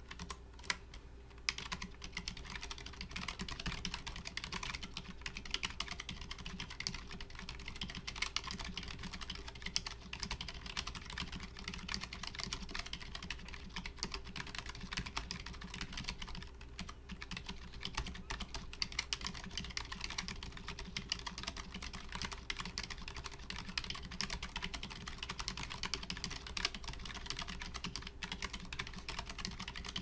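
Fast, continuous typing on a Keychron K3 low-profile mechanical keyboard with Keychron low-profile optical White switches: a dense, irregular run of key clacks, a little rattly.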